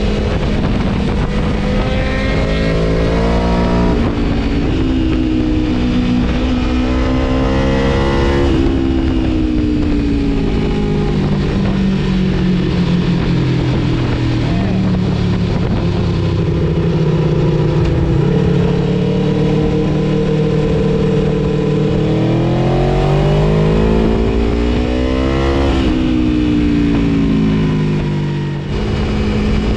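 Aprilia Tuono V4 motorcycle engine and exhaust pulling hard through the revs. The pitch climbs over the first several seconds, falls back, holds fairly steady, then climbs again and drops off near the end.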